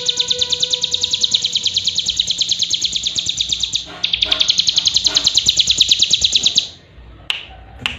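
Cigun (ciblek gunung) giving a long, fast, even trill of sharp high notes. It breaks off briefly just before halfway, resumes, and stops suddenly about two-thirds through. A few sharp clicks follow near the end.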